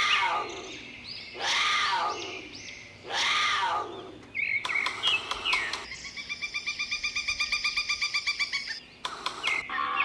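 Bird calls: three loud calls, each falling in pitch, about a second and a half apart, then short chirps and a fast, even trill of about nine notes a second lasting nearly three seconds.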